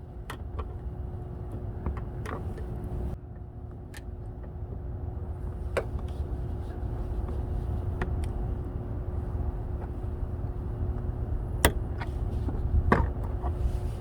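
Scattered sharp clicks and taps from hand work on a car's plastic trim clips, over a steady low rumble and a faint steady hum.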